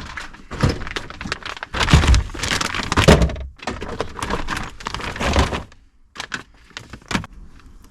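Objects being handled and set down by hand: an irregular run of knocks, thunks and rustling, ending in a few separate clicks.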